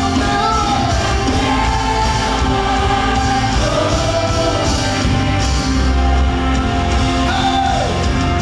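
Live gospel music: a man singing into a microphone over a full band with drums, joined by backing singers.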